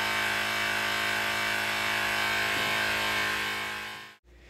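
Background music of sustained chords, fading out near the end and then cut off, leaving faint room tone.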